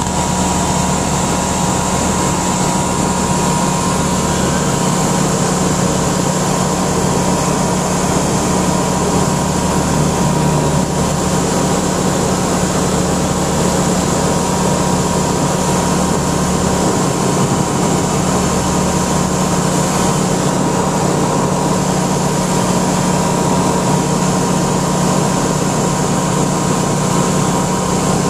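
Single-engine light aircraft's piston engine and propeller running at a steady cruise setting, heard from inside the cockpit as a loud, even drone that holds one pitch.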